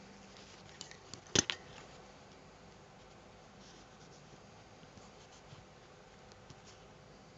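A single sharp knock, doubled, about a second and a half in, with a few faint clicks and ticks against quiet room noise.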